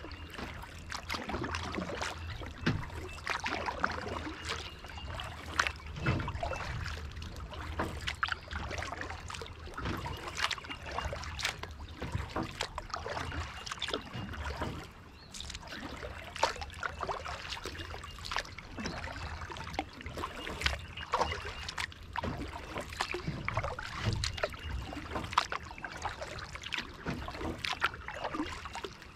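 Kayak paddling: paddle blades dipping and splashing in the water, with drips and trickles off the blades in an irregular run of strokes over a low rumble.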